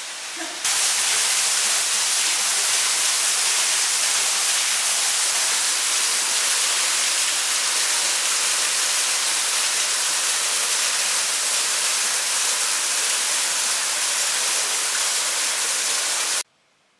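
Steady, hissing rush of falling water in a narrow rock canyon, loud and even with no variation. It starts abruptly about a second in and cuts off suddenly near the end.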